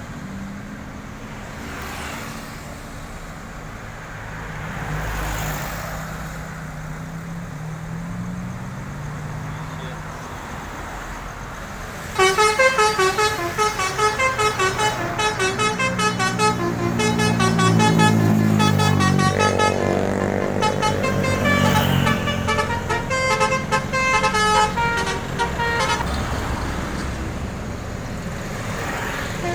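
Bus engine and road traffic, then about twelve seconds in a bus's Basuri telolet horn suddenly starts playing a rapid melody of many short notes, which goes on for over ten seconds as a bus engine passes.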